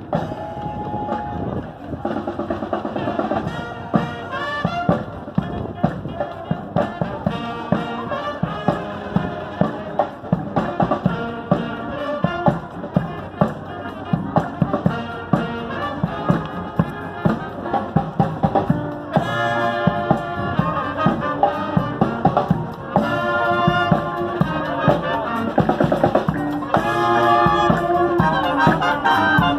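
Marching band playing, with brass carrying the tune over a steady beat on field drums.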